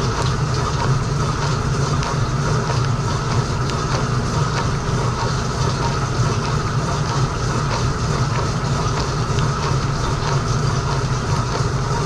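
Frigidaire Gallery dishwasher mid wash cycle, heard from inside the tub: a steady pump hum under constant water spray from the spray arms, splashing onto the racks and dishes.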